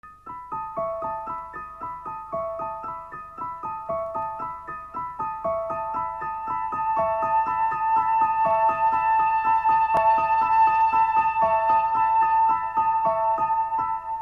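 Opening title music on an electronic keyboard: a quick, repeating arpeggio of bright notes that cycles about every one and a half seconds, with a held tone swelling under it in the middle. It fades out near the end.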